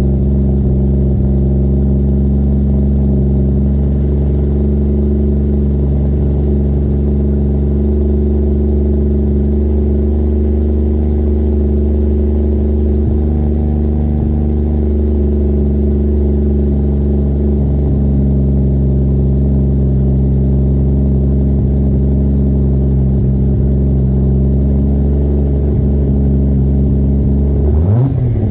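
Mk4 Toyota Supra's 2JZ inline-six, turbocharged through an S23 tubular manifold and a Tomei titanium exhaust, idling steadily after a cold start. The engine begins a sharp rev up right at the end.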